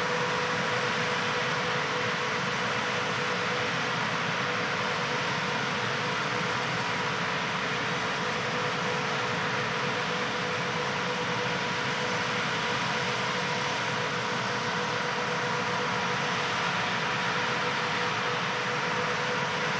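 John Deere 8000R-series tractor pulling an Amadas 2110 six-row peanut combine that is threshing as it goes. A steady mechanical rushing hum with a constant whine.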